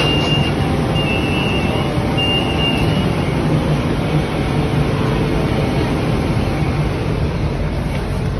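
Metro platform screen doors sounding three high warning beeps, each under a second long, in the first three seconds as the train's doors open, over the steady hum and rumble of a standing electric train and the station.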